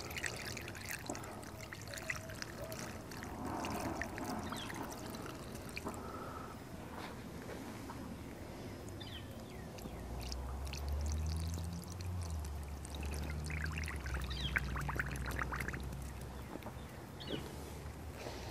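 Diesel fuel pouring from a plastic jug into a new spin-on fuel filter, filling it before it is fitted. A low hum comes in about halfway through and fades near the end.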